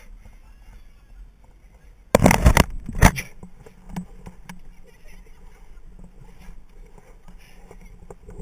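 Rope and climbing-gear handling noise on an abseil, heard through a head-mounted camera: a loud rough scuffing burst about two seconds in and a sharp knock just after three seconds, with quieter clicks of rope and metal gear between.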